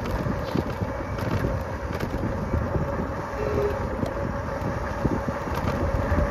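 Wind rushing over the microphone and the rumble of a bicycle being ridden on pavement, with scattered light rattles and a faint steady hum.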